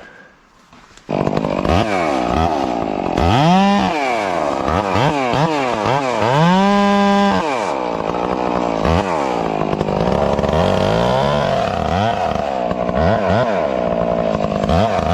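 Two-stroke chainsaw, a Stihl MS 661, starting about a second in and then revved up and down many times. It is held at full throttle briefly about halfway through, then runs more steadily.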